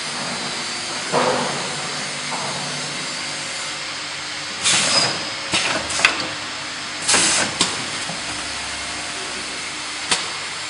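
Vertical form-fill-seal powder packing machine running with a steady mechanical hiss. Short loud bursts of hissing come about five and seven seconds in, and sharp clicks come near six and ten seconds in.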